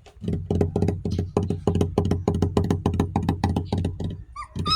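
Rapid rhythmic thumping, about five or six beats a second, for about four seconds, then a puppy starts whining with short rising-and-falling cries near the end.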